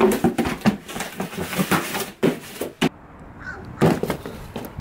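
Cardboard shipping box being lifted and handled, a quick run of knocks and rustles. About three seconds in this gives way to quieter outdoor air, broken by a single thump near four seconds.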